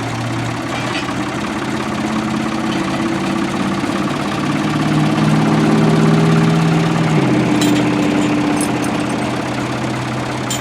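An engine running steadily. Its pitch and loudness rise slowly to a peak about six seconds in, then its pitch drops suddenly about seven seconds in.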